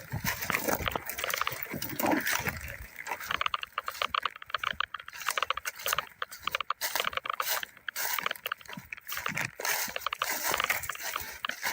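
Dense, irregular crackling and rustling of dry brush and dead vegetation, with footsteps, as someone pushes through on foot; a few heavier thuds in the first few seconds.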